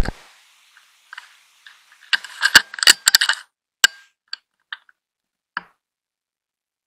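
Handling noise from a hunting rifle and its night-vision scope. A sharp knock at the start, then a quick run of small mechanical clicks and rattles from about two to three and a half seconds in, thinning to a few single ticks by about five and a half seconds.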